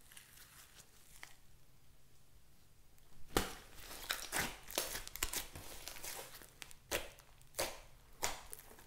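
Hands squishing and stretching a thick slime mixed with clay: faint crackling at first, then from about three seconds in a run of sharp pops and crackles as trapped air is squeezed and bursts, about half a dozen loud snaps among them.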